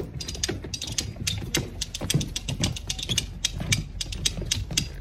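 Dancers' shoes stepping and scuffing on a wooden ship's deck: quick irregular taps, several a second, over a steady low rumble.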